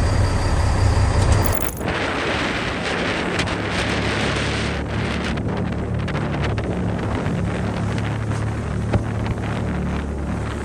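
Wind buffeting the microphone and sea noise on an open fishing boat, over the steady low hum of the boat's engine. About two seconds in the sound changes abruptly from a heavier engine hum to mostly wind and water.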